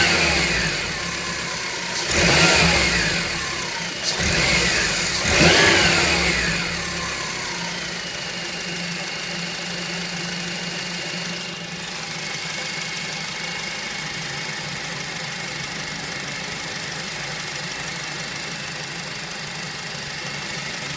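Honda Civic Type R FN2 engine revved in four quick blips, each rising and falling, then settling to a steady idle with a faint high whine: the whining, rattly noise the owner is trying to show.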